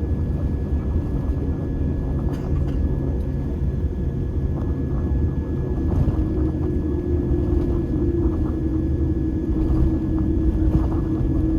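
Airliner cabin noise while taxiing: the steady low rumble of the jet engines at taxi power and the gear rolling over the taxiway, with a steady whine and a lower hum that sets in about halfway. A few faint knocks come through.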